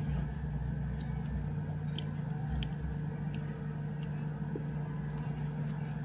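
A steady low background hum, with a few faint, light clicks of small metal mod parts and screws being handled.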